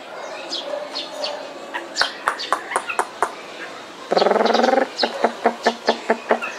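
Caged Chinese hwamei (melodious laughingthrush) calling: short high chirps and sharp clicking notes, then a loud harsh rasping call lasting under a second about four seconds in, followed by a quick run of about eight sharp chip notes.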